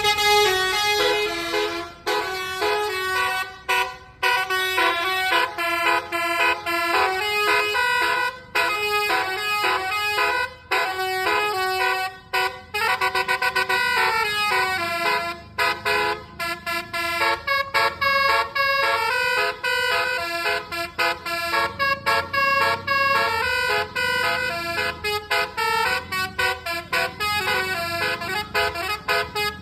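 Basuri telolet multi-trumpet bus horn playing a melody note by note: loud, stepped horn tones changing several times a second, with short breaks between phrases.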